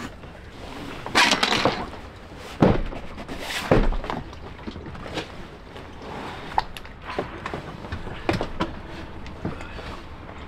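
Clunks, knocks and scraping of a Mercury 9.9 hp outboard motor being manhandled on an inflatable dinghy, its casing bumping and sliding as it is lifted and set down. The loudest are a scraping clatter about a second in and two heavy thumps a second or so apart, followed by smaller scattered knocks.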